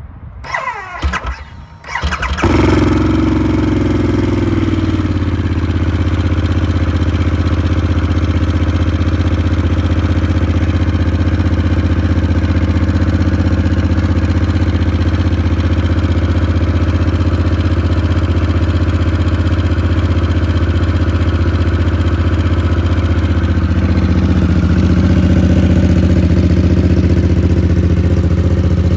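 2022 Harley-Davidson Sportster S's liquid-cooled Revolution Max 1250T V-twin, breathing through an aftermarket muffler, cranks on the starter for about two seconds, catches, and settles from a fast idle into a steady idle. The idle note grows a little louder and deeper near the end.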